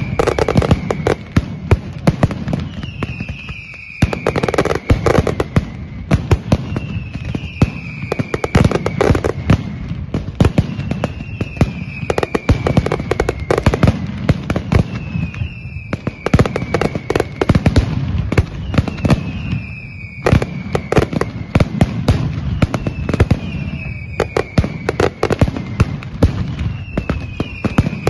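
Mascletà firecrackers: a continuous, dense barrage of rapid bangs and aerial cracks. A falling whistle sounds over the bangs about every two and a half seconds.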